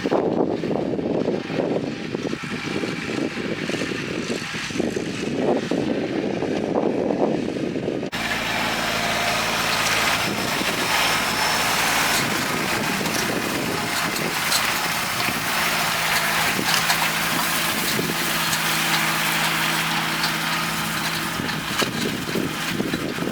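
Kubota tractor diesel engine running at a steady hum while working a hay tedder, with rushing noise over it. About eight seconds in, the sound changes abruptly to a steadier engine drone with more hiss.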